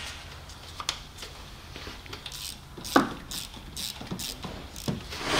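Scattered light metallic clicks and clinks of hand tools and parts being handled, with one louder clink about three seconds in.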